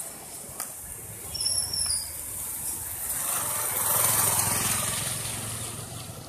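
A motorcycle passing close by on a wet road: its engine hum and tyre hiss swell to a peak and then fade as it rides away. A brief high squeal sounds about a second and a half in.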